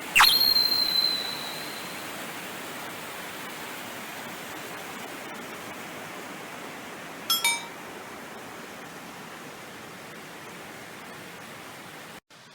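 Steady rushing noise of a waterfall. At the very start a sharp high tone rings for about two seconds, and two brief high chirps come about seven seconds in.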